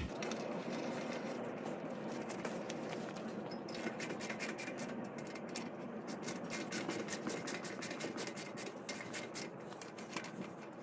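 Socket ratchet clicking in quick runs as bolts are wound down into an aluminium engine crankcase cover, over a steady background hiss.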